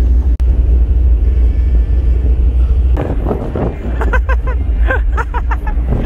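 Steady low drone of a car ferry's engines heard on board, with people's voices coming in about halfway.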